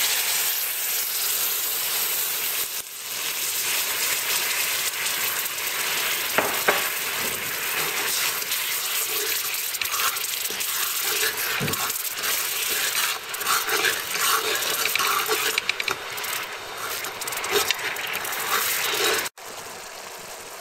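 Sugar-and-water syrup boiling and sizzling hard in a hot steel wok, stirred with a metal spatula that clicks and scrapes against the pan in the second half. The sizzle drops abruptly to a quieter bubbling near the end.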